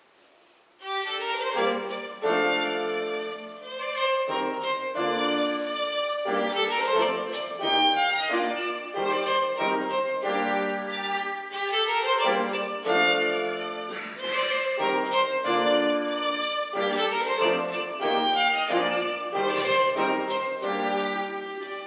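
Classical chamber music from a piano trio, with the violin carrying the melody over cello and piano, starting about a second in after near silence.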